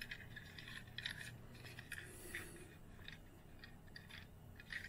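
Faint handling noise from fingers turning a small die-cast Matchbox toy ambulance: a few light scrapes and ticks.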